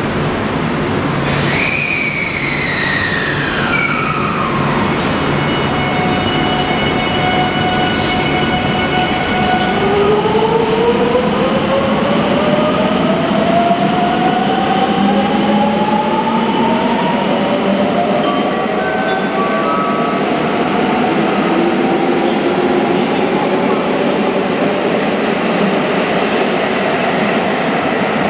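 Electric train in an underground station, running with a steady rumble and the whine of its inverter motors. The whine falls in pitch early on, holds a few steady tones, then rises slowly for several seconds as the train gathers speed.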